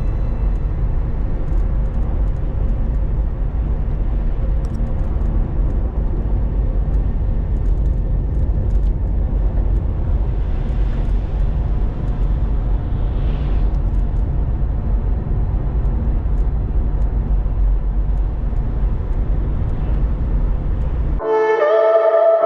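Steady low rumble of a car driving at highway speed, road and tyre noise with no horn or engine note standing out. Music comes back in near the end.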